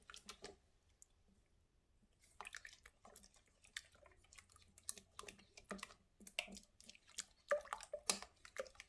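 A utensil stirring wet ingredients (egg, milk and honey) together in a mixing bowl: faint, irregular clicks and wet taps against the bowl, with a pause of about a second near the start.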